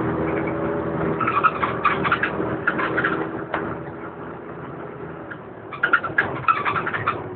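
A DAF DB250LF double-decker bus heard from the lower deck while moving. The engine drone is steady at first, then fades away about four seconds in, and comes in bursts of sharp clicking rattles.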